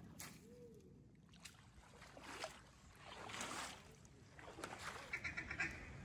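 Duck quacking, mallard-style: a few quacks, then a fast run of short quacks about five seconds in, over a low rumble of wind.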